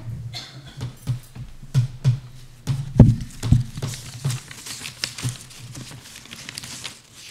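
Footsteps and knocks as a person steps up to a pulpit, with two louder thumps about three seconds in, followed by papers rustling as they are handled.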